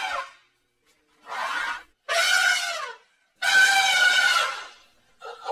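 Elephant trumpeting: several loud, harsh trumpet calls in a row with short pauses between them, the longest about three and a half seconds in.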